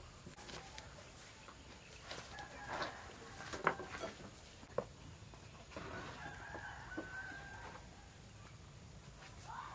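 Chickens clucking and a rooster crowing, with a few scattered sharp knocks.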